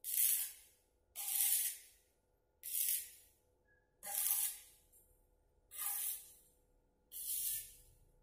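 Electric arc welder laying short tack welds on a bicycle frame: six separate bursts of crackling hiss about a second or so apart, each starting suddenly and dying away after under a second.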